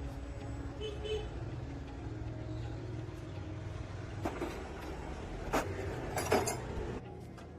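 A steady low engine rumble, with three sharp knocks between about four and six and a half seconds in.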